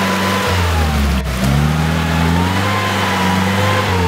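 UAZ-452 'Bukhanka' van's engine revving under load in deep mud, its pitch dropping about a second in and climbing again, with one sharp knock just over a second in.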